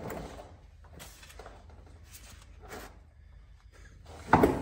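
Faint clicks and knocks of a ratchet and socket being worked on an oil pan drain plug, then a loud short thump about four seconds in.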